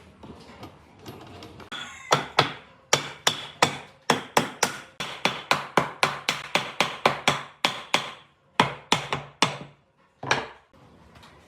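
Hammer blows on wood in a quick, even series of about four a second, starting about two seconds in, then a short pause and two last blows near the end.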